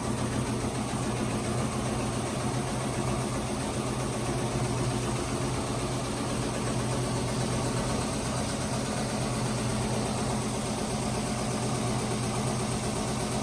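Washing machine on its spin cycle, running fast with a steady loud hum. It is loaded with a bulky comforter, which the owner's father says the washer isn't big enough to handle.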